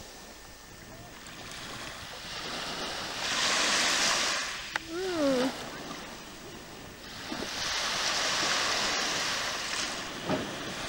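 Water washing and surging in slow waves of hiss that build and fade every few seconds, with wind on the microphone. A short wavering cry falls in pitch about five seconds in.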